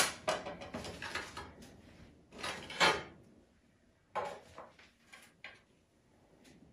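A serving tray and utensils being handled on a tabletop: light clatters that die away, a short scrape just before three seconds in, then a few soft knocks.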